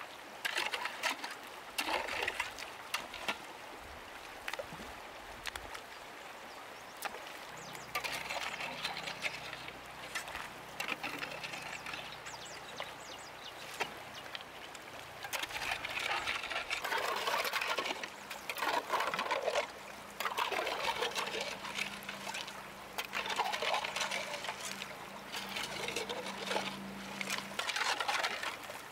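Stream water splashing and trickling in irregular bursts, with scattered sharp clicks.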